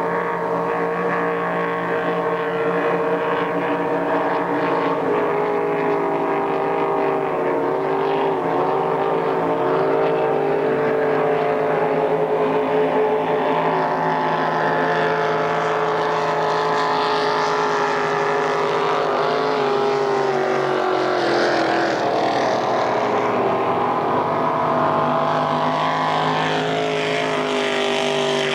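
Racing powerboat engines running flat out as the boats speed past, a steady loud drone of several engine notes. The pitch wavers, dips about twenty seconds in, then rises again.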